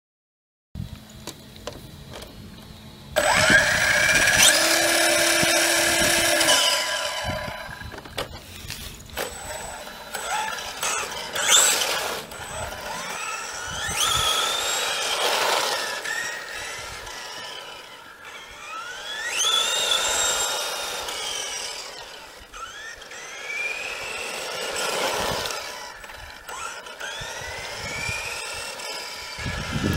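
Electric motor of a 1/10-scale Tamiya Blitzer Beetle RC buggy whining under throttle. A loud run starts about three seconds in, then the whine rises in pitch again and again as the car accelerates in repeated bursts.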